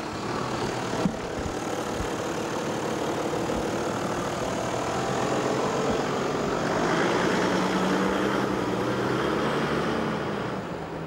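A Toyota four-wheel-drive's engine idling and moving off slowly close by, a steady low hum whose note lifts a little and gets slightly louder in the second half.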